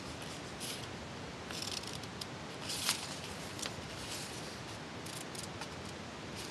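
Scissors snipping through folded paper, with the paper rustling as it is handled: a scatter of short, faint snips over a steady low hiss, the plainest about three seconds in.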